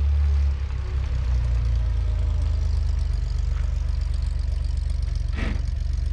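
The 1962 Chevrolet Greenbrier van's rear-mounted, air-cooled Corvair flat-six running steadily under way, a low, fast-pulsing drone. A brief sharper noise cuts in about five and a half seconds in.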